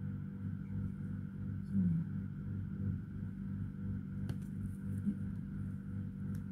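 Steady low mechanical hum, pulsing about twice a second, with a single sharp click about four seconds in.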